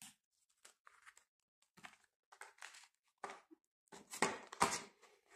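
Clear plastic binder pocket crinkling as it is handled, in scattered short rustles that grow louder near the end.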